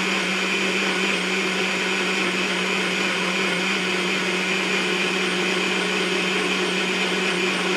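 NutriBullet personal blender running steadily with an even hum, blending ice, banana and almond milk into a smooth frozen shake.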